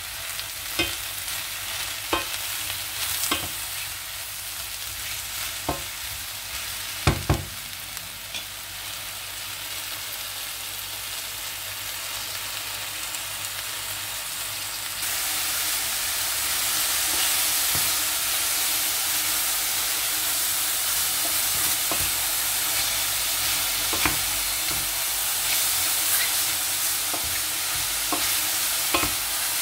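Sliced mushrooms sizzling in a stainless steel pan while being stirred with a wooden spoon, the spoon knocking against the pan now and then. The sizzle steps up louder about halfway through.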